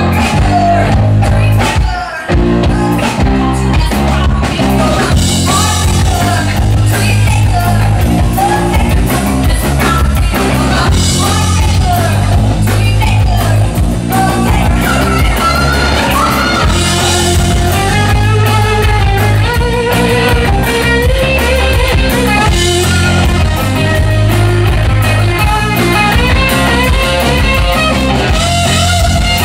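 Live rock band playing: a woman singing lead over electric guitar, bass guitar and drum kit, with a brief break in the sound about two seconds in before the band carries on.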